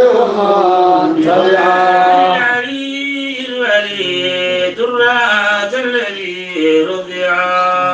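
A male voice chanting a Sufi devotional qasida in Arabic, drawing out long held notes that slide from pitch to pitch over a steady low tone, softening briefly twice.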